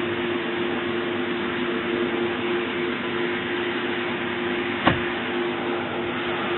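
Steady mechanical hum and hiss with a low droning tone, broken once by a single sharp click about five seconds in.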